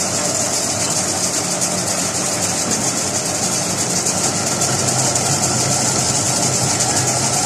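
Metal-turning lathe running steadily, its chuck spinning a metal tube workpiece: a steady machine hum with a high hiss over it.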